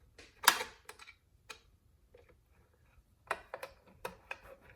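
Sharp metallic clicks and taps of hardware and a hand tool as a muffler cover is fitted onto a chainsaw. There is one loud click about half a second in, a few lighter ones, then a quick run of clicks near the end.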